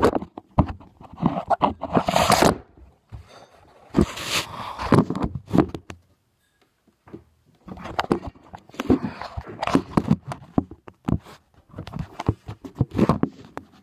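Handling noise on a phone's microphone: fingers rubbing, scraping and knocking on the phone as it is moved about, in irregular bursts with a quiet stretch about six seconds in.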